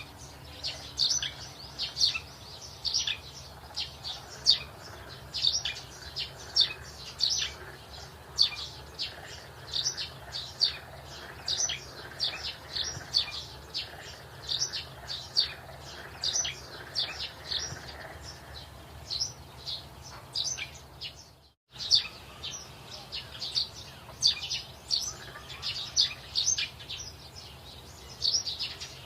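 Small birds chirping continuously, many short high chirps each second, cutting out for a moment about two-thirds of the way through.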